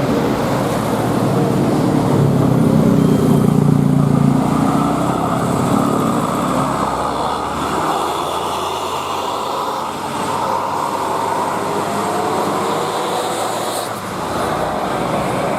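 A passing vehicle's engine working uphill, with tyre and road noise. It is loudest and deepest about two to five seconds in as the vehicle goes by, then settles to a lower, steadier traffic noise.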